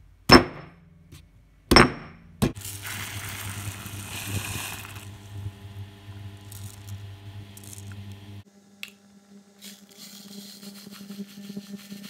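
Three sharp knocks of a granite pestle pounding fresh ginger in a stone mortar within the first few seconds, then a pot of rice at the boil, bubbling and hissing over a steady hum, with light scattered ticks near the end.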